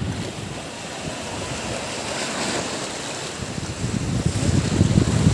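Sea surf washing onto a beach, with wind buffeting the microphone; the rumble grows louder about three and a half seconds in.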